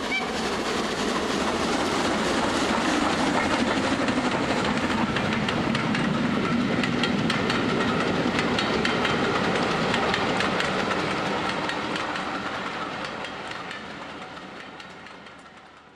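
Regner 'Konrad' live-steam garden-railway locomotive running past, a steady hiss of steam with rapid clicking of wheels over rail joints. It grows louder, holds, then fades away over the last few seconds.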